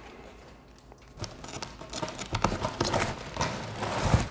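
Cardboard box being handled and fitted down as a cover over a foil-lined tray: a run of light scrapes, taps and knocks, the loudest knock just before the end.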